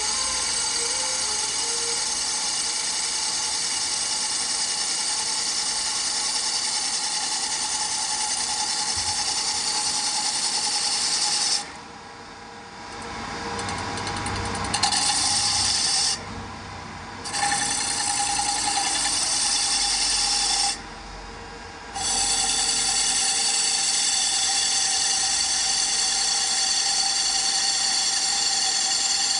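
CNC lathe running a dry cycle without cutting: a steady whine and hiss from its spindle and drives. The sound drops away briefly three times as the machine pauses, and a low rumble swells back up after the first pause.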